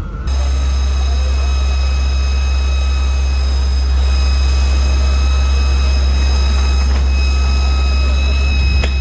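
Heavy machinery running steadily, a loud deep hum with a thin, constant high whine over it, and a couple of sharp clicks near the end.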